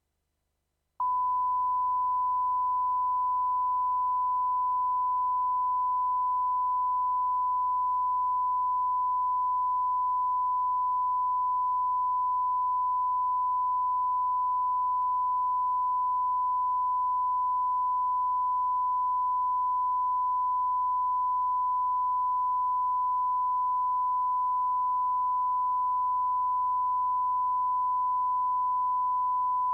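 BBC closedown tone: a single pure, high whistle that switches on about a second in and holds steady without a break. It is the line-up tone sent with the test card after BBC One has closed down for the night.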